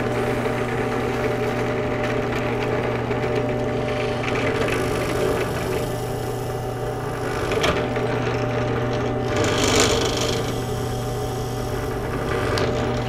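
Benchtop drill press running with a steady motor hum while a Forstner bit is fed down through PVC pipe, boring a hole. The cutting noise comes and goes, with a sharp click a little before eight seconds and the loudest cutting about ten seconds in.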